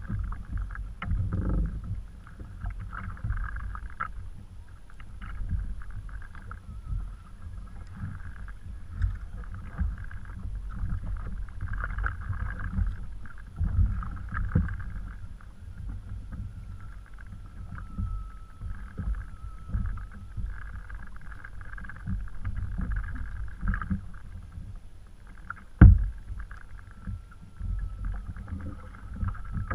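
Water lapping and sloshing against a kayak hull, an uneven low rumble with scattered small knocks, and a single sharp knock late on.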